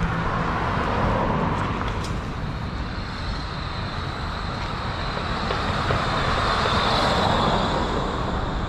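Street traffic: cars going by on a city road, the noise swelling as vehicles pass about a second in and again around seven seconds, with a high thin whine in between.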